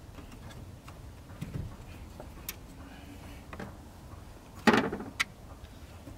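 Small metallic clicks and taps of parts and hand tools being handled in a car's engine bay, with one louder clank about three-quarters of the way through.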